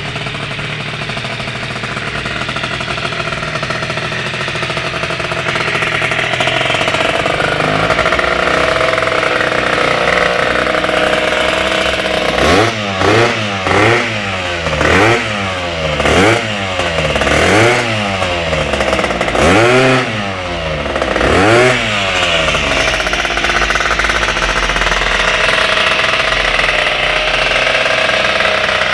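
Tuned two-stroke scooter engine with a Malossi MHR Team II cylinder kit running steadily, then revved in seven or eight short throttle blips about a second apart, each pitch rising and falling back, before it settles to a steady run again.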